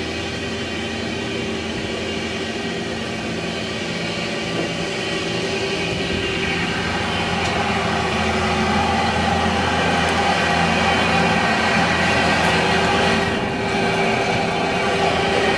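Road-rail excavator working on a railway track: a steady machine sound of engine and hydraulics with several held tones, growing louder about halfway through and dipping briefly near the end.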